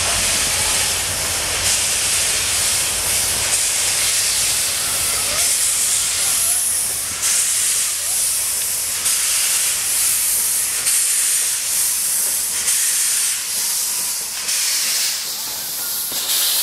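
WP-class Pacific steam locomotive starting away with its train, cylinder drain cocks open: loud hissing of steam with rhythmic exhaust chuffs about once a second. The low rumble fades in the second half as the engine moves past.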